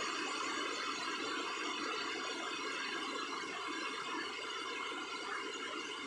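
Waterfall: a steady rush of falling water that holds even throughout.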